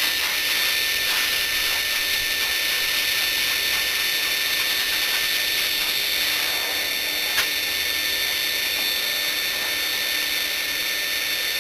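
Forced-air dog grooming dryer running steadily, its motor giving a high whine over the hiss of air blowing out of the hose onto a dog's coat. A single brief click about seven seconds in.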